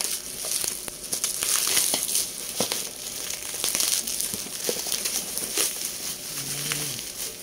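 Black bubble-wrap plastic packaging crinkling and crackling as it is cut open with scissors and pulled off a cardboard box, with many sharp little clicks from the plastic.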